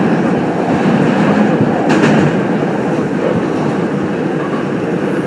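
Korail 351000-series subway train running through a tunnel, heard from inside the car: a steady rumble of wheels on rail, with one sharp clack about two seconds in.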